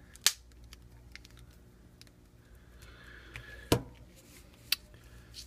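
Three sharp plastic clicks with a few fainter ticks between them, one just after the start and two more past the middle: the snap-on back cover of an LG Aristo phone being pressed onto its clips.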